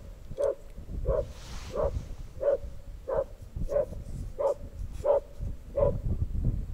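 A laika dog barking steadily and repeatedly, about one and a half barks a second, baying at a wild boar, which the owner believes the dog has brought to bay.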